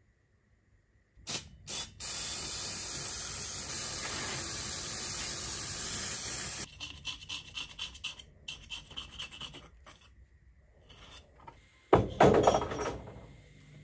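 An aerosol can sprays paint stripper onto a painted metal oil can. After a second of quiet come two short spurts, then a long steady hiss for about five seconds, then shorter choppy spurts. Near the end the sandblasting cabinet's gun lets off a few loud blasts.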